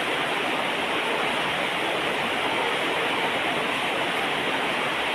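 Steady rushing noise that holds an even level throughout, with no distinct events.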